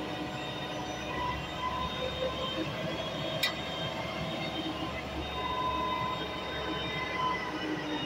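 SANY truck-mounted concrete pump running: a steady low machine rumble with thin, high squealing tones that come and go, and one sharp click about three and a half seconds in.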